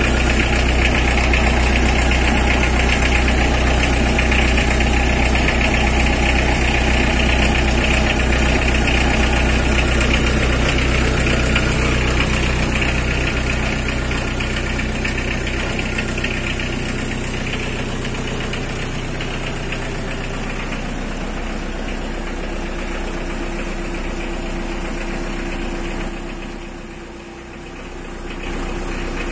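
Mitsubishi L300 pickup running in gear with its rear axle raised on blocks, the rear wheels spinning free. The engine and drivetrain give a steady hum and rumble, the test for rumbling rear wheel bearings or differential. It eases off somewhat from about halfway and dips briefly near the end.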